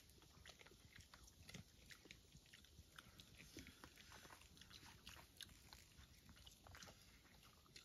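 Faint mouth sounds of a person eating: quiet chewing and biting, with soft, irregular clicks scattered throughout.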